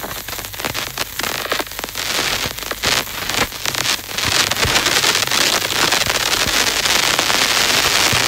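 Electronic noise music made of dense crackling clicks and hiss. It swells to a louder, steadier rushing hiss about four seconds in.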